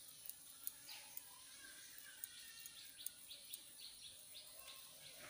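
Near-silent outdoor quiet with a small bird chirping in a quick series of short, high, falling notes, and a few faint clicks.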